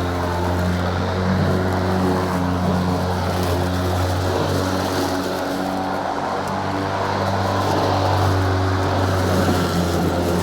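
Battery-powered EGO lawnmower running, its blade spinning with a steady whirring hum.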